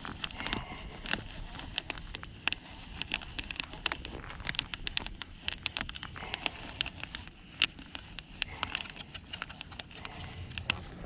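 Irregular sharp clicks and taps from a Shimano Barchetta BB 201HG baitcasting reel being cranked and handled in gloved hands, over a low rumble.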